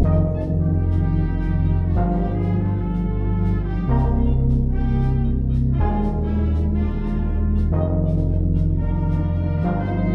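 Orchestral background music with brass playing sustained chords that change about every two seconds, over a steady beat.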